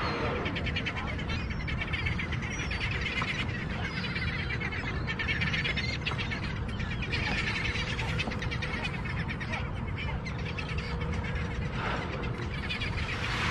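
Seabirds calling over open water in a rapid, continuous chatter, over a steady low rumble.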